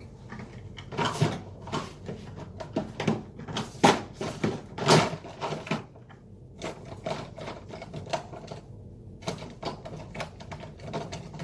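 Irregular clattering, clicking and knocking of small tools and containers being handled and moved about on a workbench. It comes in bursts, with a brief lull past the middle.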